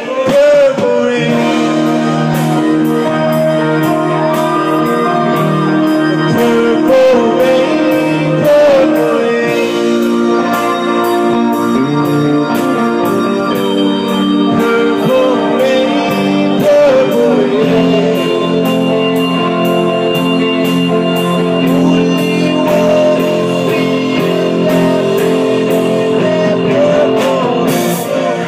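Live rock band playing: electric guitars and singing over drums keeping a steady beat.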